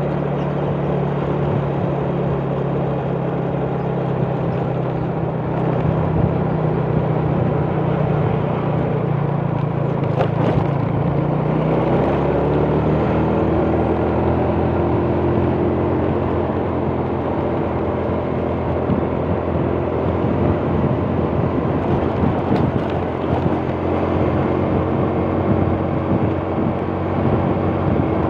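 Motor scooter engine running under way, with rushing wind and road noise. About twelve seconds in, the engine speeds up and then holds at a steady, higher pitch.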